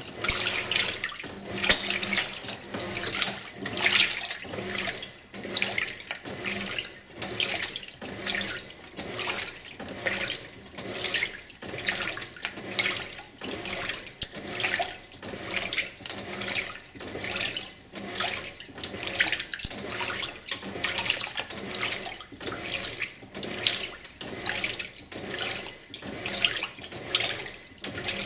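Simpson Esprit 550 washing machine agitating a load in water: regular swishing and sloshing strokes, about three every two seconds.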